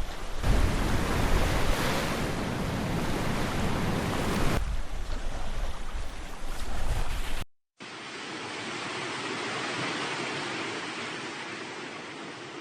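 Surf washing on a beach, with wind buffeting the microphone. About seven and a half seconds in, the sound cuts off for a moment and gives way to a softer, steady wash of waves that swells and fades.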